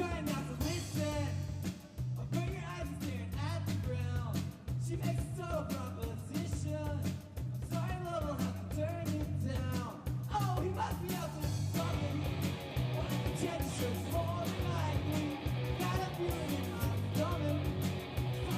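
Live rock band playing a song: a singer over electric guitar, bass and drums with a steady beat.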